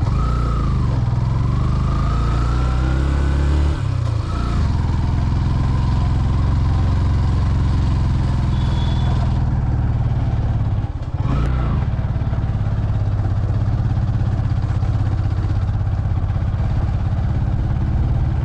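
Motorcycle engine running under load as the bike pulls uphill. The engine note dips briefly about four seconds in and again about eleven seconds in, then picks up and rises again each time.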